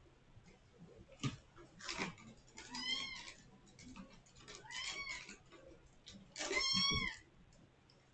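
Domestic kitten meowing three times, each call drawn out and rising then falling in pitch, the last the loudest. A sharp knock and a short rustle come before the first meow.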